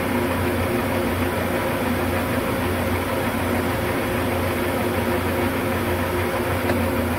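Metal lathe running with its chuck spinning a steel workpiece: a steady, even machine hum with several held tones.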